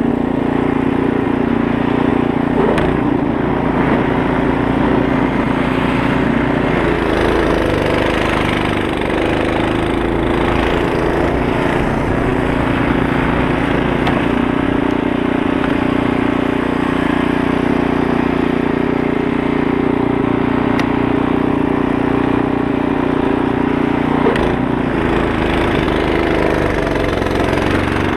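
Poulan Pro 24-inch two-stage snow blower's 208cc Briggs & Stratton engine running steadily under load as the machine clears snow.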